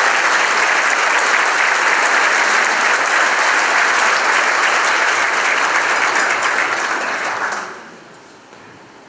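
Audience applauding steadily, then dying away about seven and a half seconds in.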